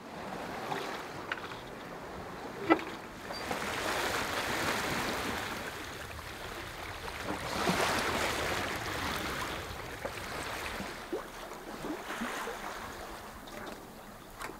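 Water rushing and splashing along a sailboat's hull under sail. The rush swells louder twice, and there is a single sharp knock about three seconds in.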